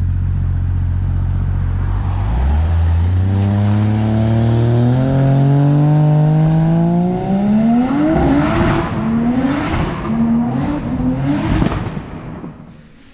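Turbocharged FG Falcon's straight-six holding a low, steady note, then pulling away about two seconds in, its pitch climbing steadily for several seconds. It goes through a run of quick gear changes, each a short rise and drop in pitch, before fading as the car drives off.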